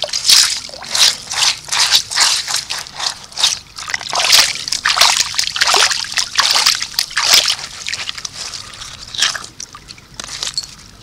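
Shallow creek water sloshing and splashing as a gloved hand scoops and stirs through the gravel, in quick irregular splashes that thin out near the end.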